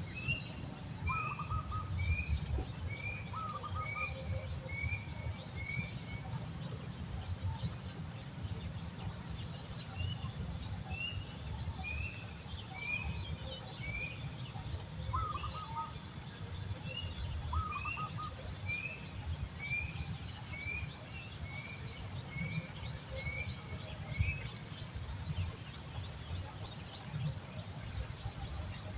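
Outdoor nature ambience: a cricket-like insect trilling steadily on one high pitch, while a bird calls in repeated runs of short chirps, with a few lower paired notes from another bird. A low rumbling haze runs underneath.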